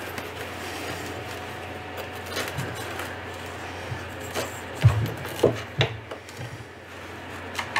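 Packing foam being rubbed and pressed in around a model airplane's fuel tank inside its wooden fuselage compartment, with several light knocks against the wood, the loudest few coming about five to six seconds in.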